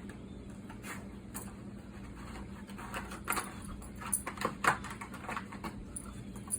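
A dog chewing and gnawing on a hard object: irregular clicks and crunches that come thicker and louder in the second half, over a steady low hum.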